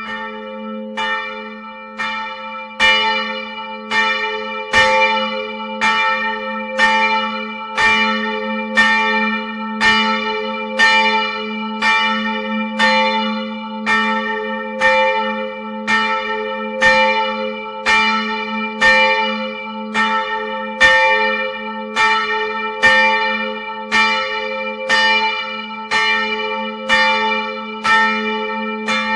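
A single swinging church bell ringing at close range inside the belfry. Its clapper strikes about once a second, the strokes alternating louder and softer, and a low hum rings on between strokes.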